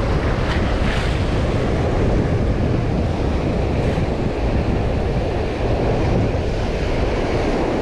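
Ocean surf breaking and washing up the beach, with wind buffeting the microphone: a steady, dense rush.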